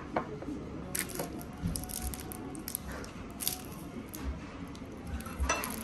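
Scattered small clicks and clinks of tableware at a restaurant table over a low, steady room background.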